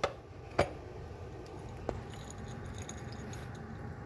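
Dry cat kibble clicking against a dish as a cat eats, picking the pieces up with her tongue: two sharp clicks in the first second, another near two seconds in, then faint, quick, light clinks.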